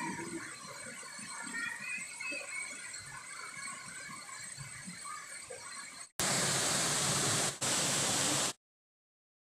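Quiet river ambience with faint high chirps, then about two seconds of loud rushing river water that stops abruptly into dead silence.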